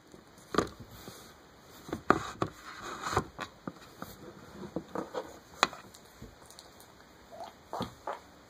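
Irregular clicks, taps and scratchy rustles of hands working nylon paracord close to the microphone, with sharp knocks about 2 s in and again near the middle.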